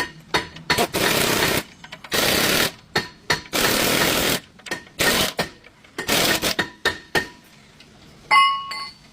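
Power tool, like an impact wrench, running in repeated bursts, some brief and some about a second long, with short pauses between them. Near the end there is a short high-pitched sound with several tones.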